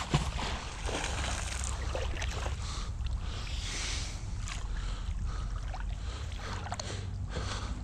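A magnet-fishing rope being hauled in by hand through the water, with water sloshing and lapping around it and a steady low wind rumble on the microphone. A brief sharp sound comes right at the start.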